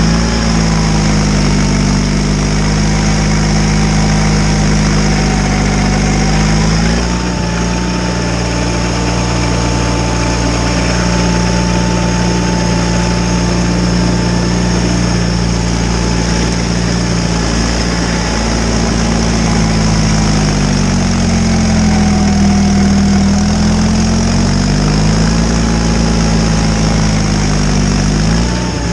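John Deere 318 garden tractor's twin-cylinder engine running steadily while driving a snowblower. Its pitch drops about seven seconds in, then rises and falls twice more near the end, with a higher whine following the same changes.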